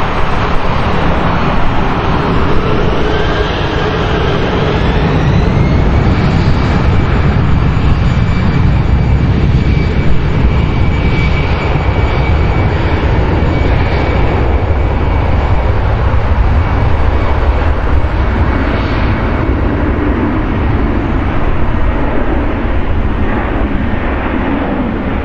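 Airbus A319-132 jet airliner on its takeoff roll, its twin IAE V2500 turbofans at high thrust: a heavy rumble with a thin whine that rises over the first six seconds and then holds steady.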